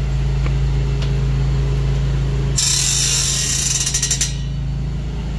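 Metal gate being pushed open: about a second and a half of scraping rattle ending in rapid clicks, over a steady engine hum.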